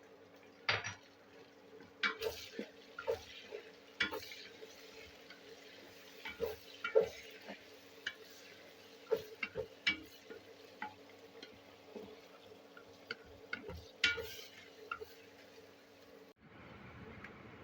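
A spoon or spatula stirring in a cooking pot, with irregular scrapes and clinks against the metal over a steady low hum; the stirring cuts off shortly before the end.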